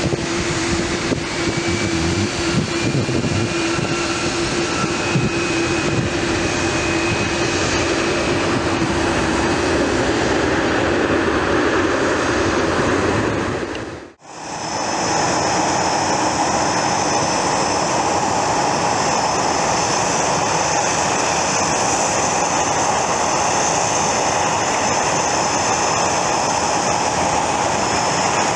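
Business jet's turbofan engines running loud on the runway, with a high whine that slowly rises in pitch. About halfway through the sound dips out briefly, then a steady high turbine whine from another aircraft on the runway takes over.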